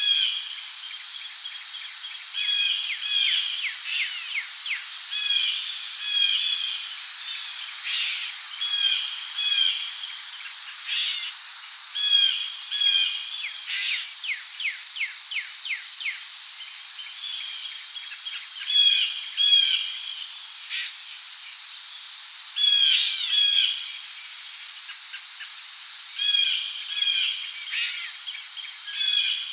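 Rainforest ambience: a steady high insect drone, with crickets, under birds calling in short repeated phrases of a few notes every second or two and now and then a quick run of rapid notes.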